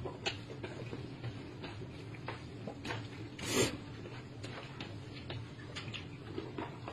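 A man slurping a mouthful of noodles, one loud slurp about three and a half seconds in, with small clicks of chopsticks and chewing over a low steady hum.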